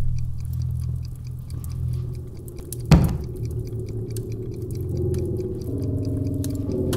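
A burning Bible crackling faintly over a low sustained drone; about three seconds in, a single sharp thud as the book drops onto the stone tile floor. From about five seconds in, higher sustained tones join the drone.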